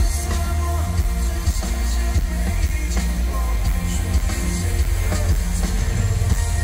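Live pop concert music through a stadium sound system, heard from within the crowd: a band with piano and a heavy, booming bass.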